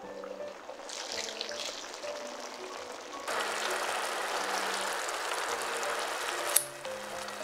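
Pork-belly kimchi rolls simmering in a wide pan, a steady bubbling hiss that begins a few seconds in and cuts off suddenly with one sharp snip of kitchen scissors cutting a roll.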